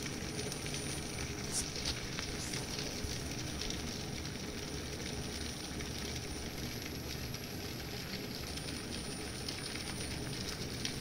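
Large stainless steel pot of bean soup boiling hard: a steady bubbling with a fine crackle, and a couple of slightly louder pops about two seconds in.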